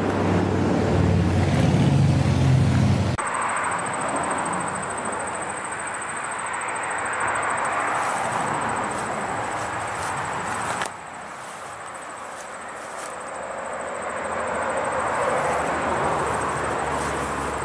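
Passing road traffic: a low engine drone that cuts off abruptly about three seconds in, then vehicle noise that swells and fades away twice.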